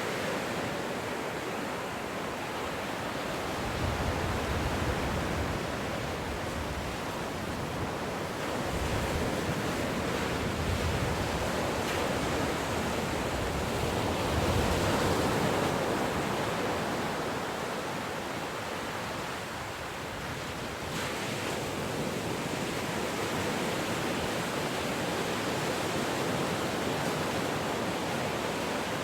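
Ocean waves breaking and washing on a shore, a steady rush that swells and eases, with the heaviest surges about four, ten and fifteen seconds in.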